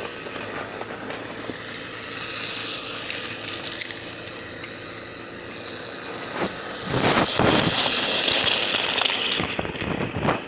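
Battery-powered Plarail toy train running on plastic track: a steady small-motor whir with wheel rattle, turning louder and rougher about six and a half seconds in and dropping away just before the end.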